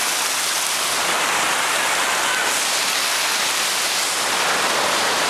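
Creek water rushing and splashing over rock ledges in small cascades: a steady, even rush.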